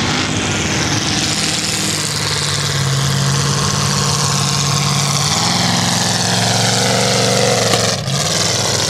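Mud-bog truck's engine running hard as it plows through a water pit, over the rush of churned water and spray. The engine note steps up about five seconds in, and the sound drops out briefly near the end.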